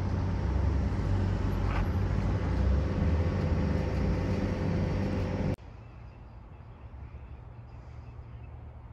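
Tram running close by: a low rumble with a steady hum, which cuts off abruptly about five and a half seconds in, leaving faint outdoor background.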